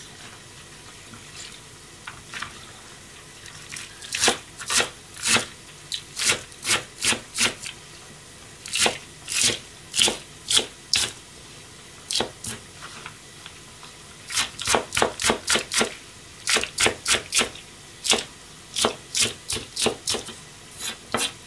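Kitchen knife slicing green onion tops on a plastic cutting board: sharp knocks of the blade on the board in short runs of quick cuts, with brief pauses between runs.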